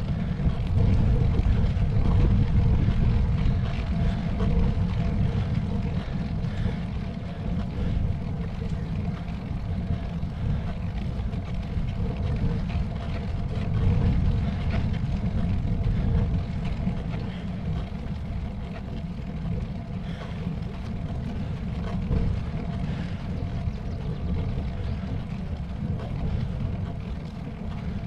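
Wind buffeting the microphone of a camera on a road bike during a climb: a heavy low rumble that rises and falls in gusts, with a faint steady hum above it.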